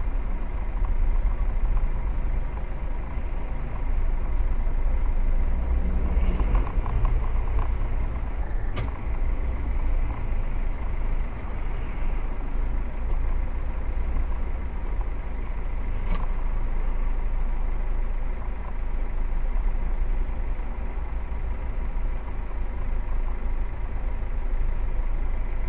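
Steady low rumble of a road vehicle driving, with faint, evenly spaced ticks and a single sharp click about nine seconds in.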